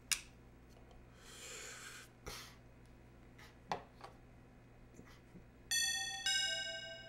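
Two-note doorbell chime about six seconds in, a higher ding then a lower dong, each ringing and dying away. Before it, a lighter clicks as a cigar is lit.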